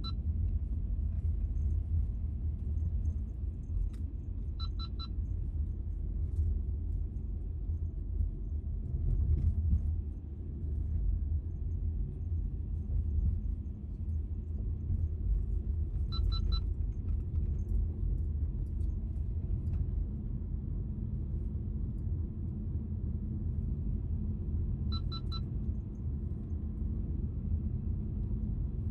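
A car being driven gives a steady low rumble of road and engine noise. Short, high electronic beeps come in brief clusters four times.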